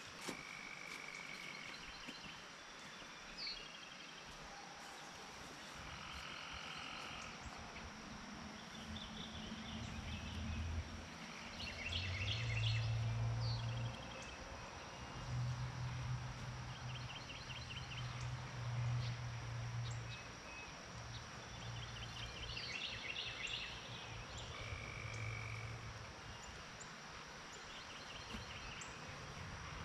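Outdoor field ambience: scattered chirps and short pulsed trills from small wild animals. Under them is a low hum that builds about a third of the way in and fades again.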